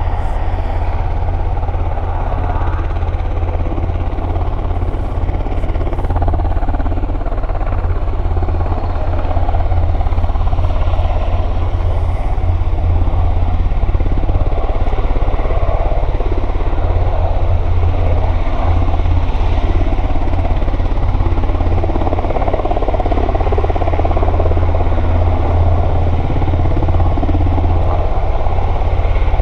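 Sikorsky S-92A helicopter's twin turboshaft engines and main rotor running steadily with a fast, low rotor beat as it taxis and lifts into a low hover. The sound grows a little louder about a third of the way in.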